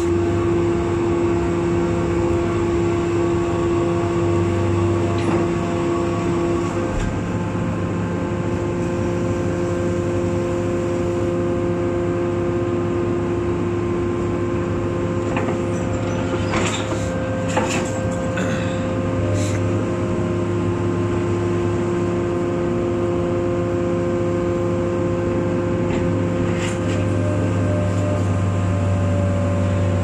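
Hydraulic scrap-metal baler running alongside a diesel excavator: a steady machine hum with several held droning tones. A few sharp metal clanks come around the middle and once more near the end.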